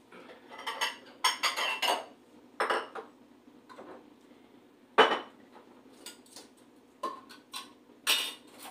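Dishes and cutlery clattering and clinking in irregular bursts, with one sharp knock about halfway through, over a low steady hum.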